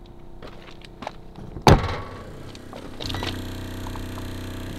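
A loud clunk from an RV's metal exterior compartment door about two seconds in. About a second later, the RV's fresh-water pump becomes audible with a steady hum. The pump is running constantly although no water is being drawn, which the owner puts down to maybe a leak in a line or a bad water pressure sensor.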